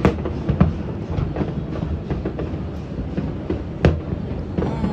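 Fireworks going off in a continuous barrage: a low rumble of overlapping booms with irregular sharp bangs, the loudest about four seconds in.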